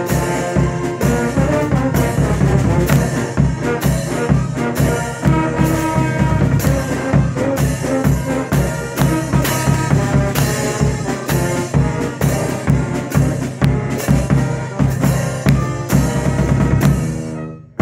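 Concert band playing a march: trombones, saxophones and other brass and wind over a steady drum beat. The sound drops away briefly just before the end.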